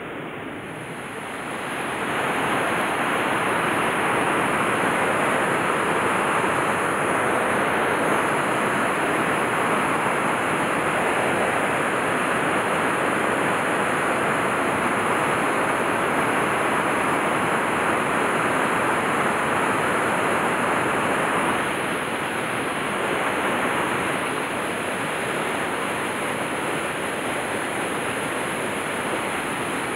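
Stream water running steadily over the riffles of a trout stream. It grows louder about two seconds in and eases a little around twenty-two seconds.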